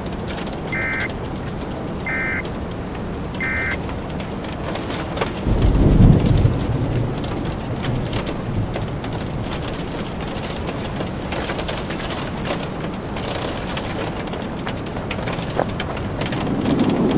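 Three short warbling data bursts about a second apart, the Emergency Alert System end-of-message tones, over steady heavy rain. A rumble of thunder follows about six seconds in, then rain continues with more thunder building near the end.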